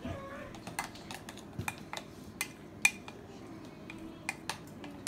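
Spoon clinking against a bowl while frosting glaze is stirred: light, irregular clicks, the loudest about three seconds in.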